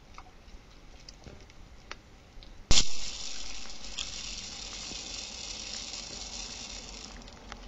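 Soft ticks and patter from a wild boar feeding at a corn bait drum, then a single loud sharp click a little under three seconds in, followed by a steady high hiss that stops just before the end.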